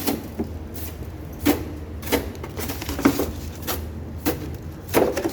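Irregular sharp knocks, one or two a second, over a steady low hum.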